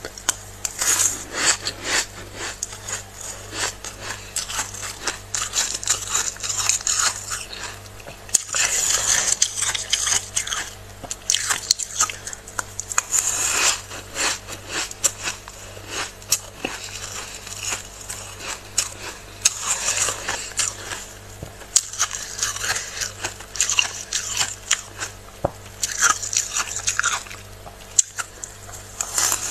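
Flaky freezer frost being scraped and crunched: dense crackling scrapes that come in uneven bursts, with short pauses between them.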